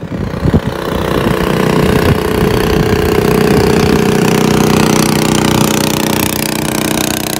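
Small boat engine running steadily, its level building over the first couple of seconds and then holding.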